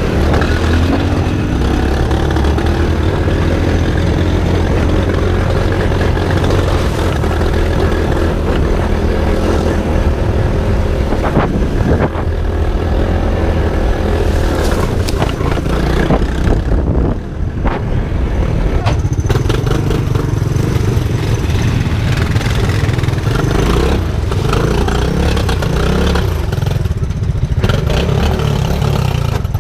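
Small off-road vehicle engine (three-wheeler or ATV) running under varying throttle, the revs rising and falling, with some clatter and knocks.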